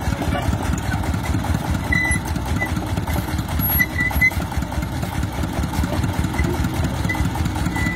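Công nông farm truck's single-cylinder diesel engine idling with a steady chugging.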